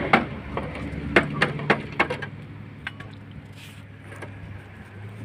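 Six or so sharp knocks in the first two seconds, over a low steady hum that carries on alone afterwards.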